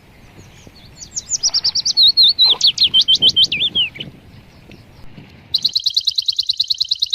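A bird singing: a quick run of sharp, varied whistled notes from about a second in, then near the end a fast, even trill of about ten notes a second.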